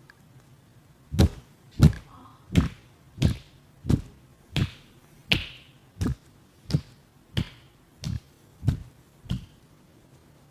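Hands striking the body in a percussive massage: thirteen even slaps about two-thirds of a second apart, each with a dull thud.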